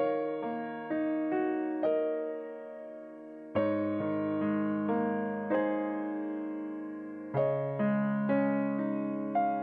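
Background piano music: a slow, gentle piece of struck notes and chords, a new chord about every two seconds with single notes between, each left to fade.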